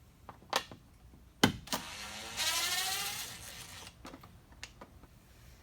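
Power drill run briefly, its motor whine rising in pitch for about a second and a half. It comes after a few sharp clicks and knocks of the tool being handled, the loudest about a second and a half in.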